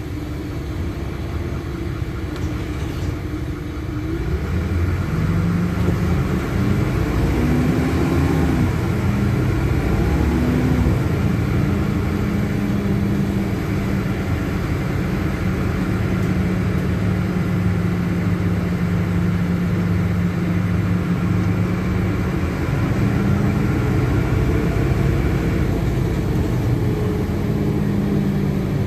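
Cabin sound of a LiAZ-5292.21 city bus under way: its diesel engine hum grows louder about four seconds in as the bus picks up speed. The pitch climbs and steps back down a couple of times before the engine settles into a steady run.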